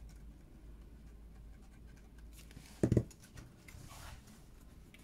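Hands working paper and card, with faint rustling and scratching, and a short dull double knock about three seconds in as a plastic liquid glue bottle is set down on the table.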